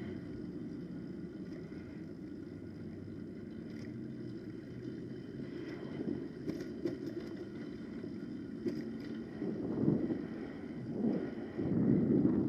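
Wildcat PK80 80cc two-stroke engine on a motorized bicycle running steadily while riding at low speed, growing louder in surges near the end.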